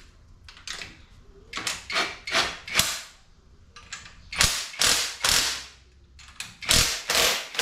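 Ratchet wrench turning the threaded rods of a strut coil-spring compressor, tightening the clamps down on the spring. It makes short clicking strokes in small groups, fainter at first and louder from about halfway through.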